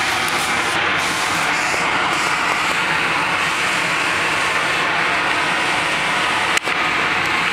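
The electric blower of an inflatable bounce house running continuously, a loud, steady rush of air and motor hum, with a momentary dropout about a second before the end.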